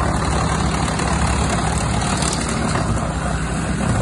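An engine running at a steady speed, a low even drone with no change in pitch.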